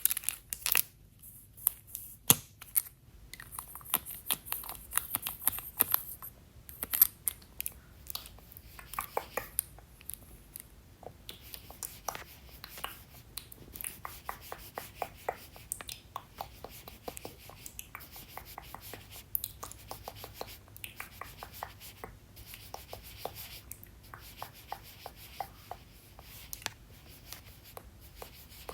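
Close-miked handling of makeup products and tools: irregular sharp clicks and taps mixed with bursts of scratchy rubbing and brushing.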